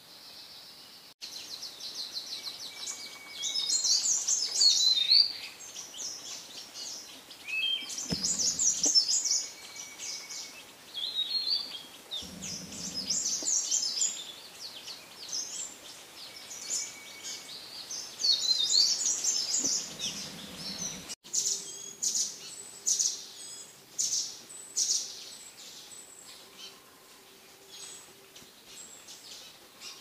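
Wild songbird singing a rich, warbling phrase four times, about every four to five seconds, with thin whistles in between; after a change near two-thirds of the way, short sharp chirps and calls.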